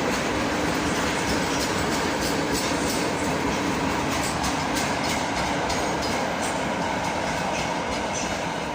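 A train rolling past on the tracks, a steady rumbling noise with its wheels clicking over the rail joints, easing off slightly near the end.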